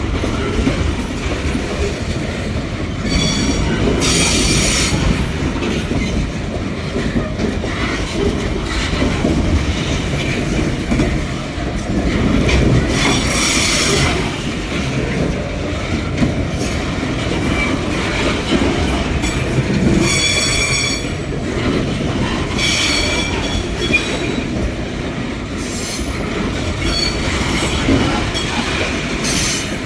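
Metre-gauge freight train wagons rolling past with a steady rumble, broken several times by bursts of high-pitched wheel squeal.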